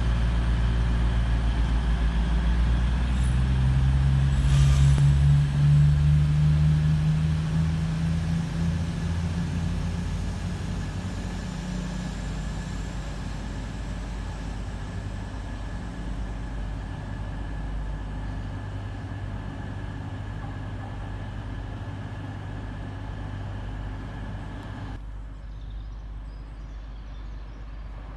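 Diesel engines of an East Midlands Railway Class 222 Meridian diesel multiple unit. The engine note rises in pitch about four to six seconds in as the train powers up, then fades steadily as the train draws away.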